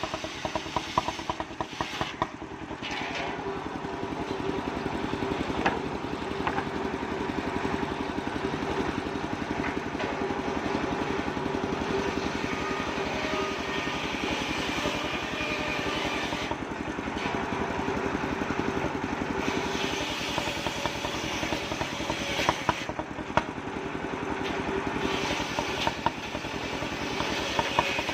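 Small engine running steadily on a homemade portable circular-saw machine, with a fast even pulse. A higher hiss comes and goes over it several times.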